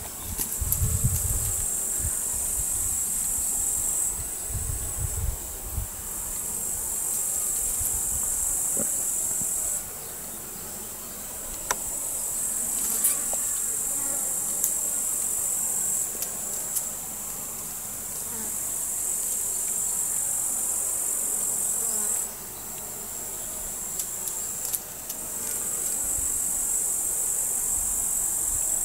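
Insect trilling in a continuous high-pitched buzz that stops and starts in long stretches: it breaks off about ten seconds in, resumes a couple of seconds later, falls silent again about twenty-two seconds in and starts up once more a few seconds after. A few low thumps come in the first seconds.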